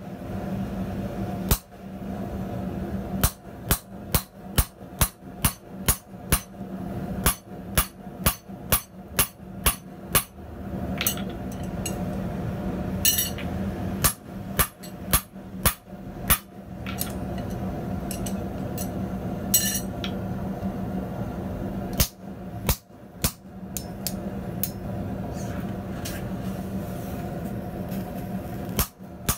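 Hammer blows on a handled punch driving a hole through a small piece of hot steel on the anvil: sharp metal-on-metal strikes in runs of about two a second, broken by several pauses. A steady low hum runs underneath.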